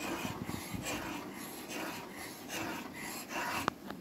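A metal spoon stirring boiling tea in a steel saucepan, scraping the pan in repeated strokes, with one sharp click near the end.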